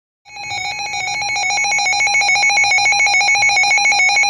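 Emergency Alert System alert tone heralding a severe thunderstorm warning: a loud, steady electronic tone with a rapid buzzing flutter, starting a moment in.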